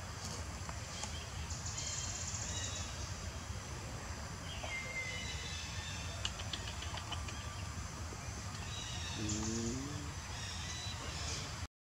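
Outdoor forest ambience: a steady low rumble under a faint high hiss, with bird chirps and a short falling whistle about halfway through, and a brief low call near the end.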